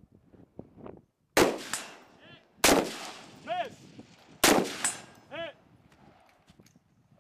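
Three rifle shots, the second and third coming about one and a half and two seconds after the first. About a second after each shot, a hit steel target rings back with a short metallic ping.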